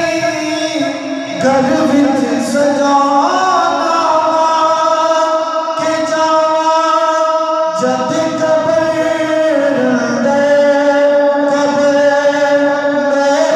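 A man singing a devotional song into a microphone, his voice amplified over a sound system, in long held notes with small melodic turns.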